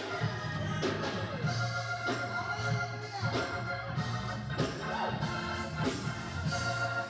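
Gospel music with organ chords held over a steady beat.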